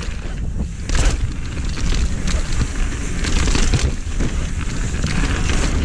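Mountain bike riding down a dirt forest trail: tyres rolling over dirt and roots and the bike rattling, with frequent sharp knocks, under a heavy wind rumble on the camera microphone.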